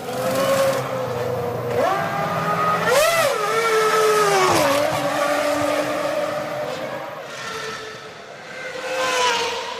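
2001 Formula One cars' 3-litre V10 engines at high revs. The pitch climbs about three seconds in, drops sharply around four and a half seconds as a car brakes and shifts down, then swells again near the end as another car comes through.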